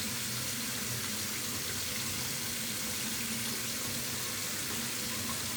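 Bathroom tap left running into the sink: a steady, even rush of water.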